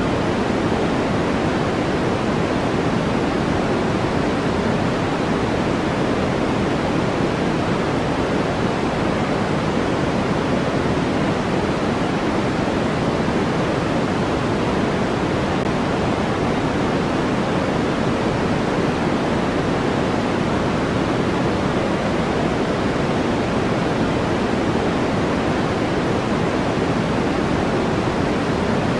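Steady, unchanging hiss of sleep-aid noise, fuller in the lower middle and fading toward the highs, closer to pink noise than to flat white noise.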